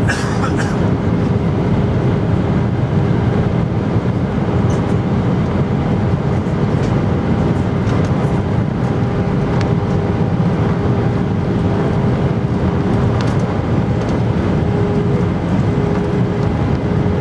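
Steady in-flight cabin noise of an Airbus A319 airliner heard from a seat beside the engine: a loud rush of airflow with a steady engine hum, which steps up slightly in pitch near the end. A brief click sounds right at the start.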